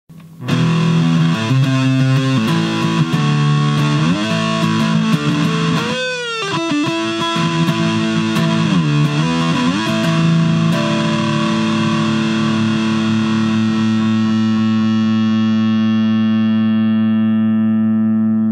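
Distorted electric guitar playing a riff, with two deep pitch dips that swoop back up about six and nine seconds in, then one chord left to ring out.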